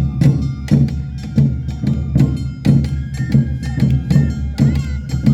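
Awa odori festival music: taiko drums and a struck hand gong beating a quick, steady two-beat rhythm, with a melodic line coming in near the end.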